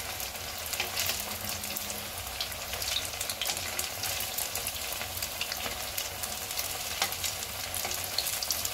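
Sabudana vadas deep-frying in very hot oil in an iron kadai: a steady sizzle with many small crackles and pops. A perforated metal spatula turns them in the oil, giving a few sharper scrapes and clicks against the pan.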